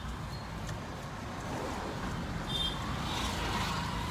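Low, steady rumble of a car's engine and road noise heard from inside the cabin as it drives along a street.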